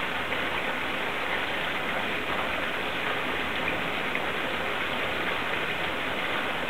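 Maple sap pouring steadily from a pipe into a metal tank, splashing and foaming as it lands.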